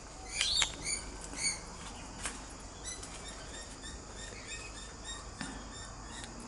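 Princess parrots giving short, soft chirps over and over, with a few sharp clicks near the start and again a couple of seconds in.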